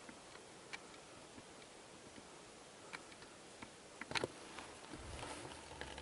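Movement in dry forest undergrowth: scattered faint clicks and twig snaps, a quick cluster of sharper cracks about four seconds in, then a stretch of rustling.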